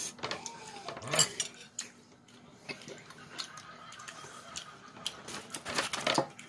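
Chopsticks clicking and tapping against a plastic takeout bowl and ceramic plates as rice cakes are lifted out and served, a scattering of light clicks with a cluster near the end.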